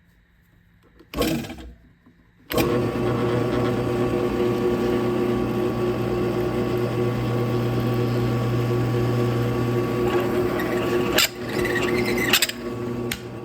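Bucktool variable-speed drill press at its lowest speed (500 rpm), driving a Knkut stepped drill bit through titanium with cutting fluid: a steady motor hum with the sound of metal being cut. It starts about two and a half seconds in, after a short burst of noise about a second in. Near the end it drops to a lower level, and the bit is cutting cleanly.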